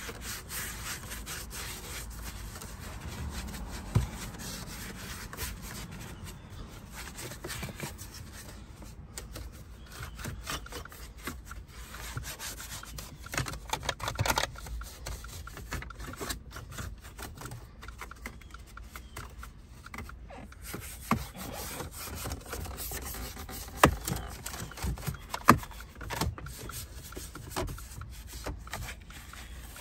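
Detail brush scrubbing a car's plastic dashboard trim and steering wheel with spray cleaner: a continuous scratchy rubbing with small clicks. A few sharper knocks come through, two of them loud and about a second and a half apart late on.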